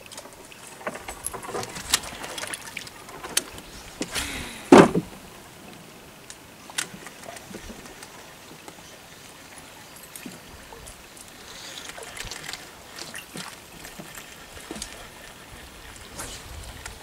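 Water splashing and lapping around a small boat, with scattered clicks and knocks from handling a baitcasting rod and reel. One louder burst about five seconds in.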